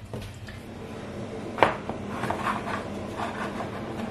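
Quiet handling of rolled pastry dough on a floured countertop, with one sharp tap about one and a half seconds in.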